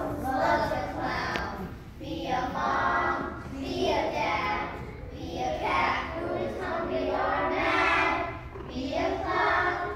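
A group of children singing together, in sung phrases of one to two seconds with short breaks between them.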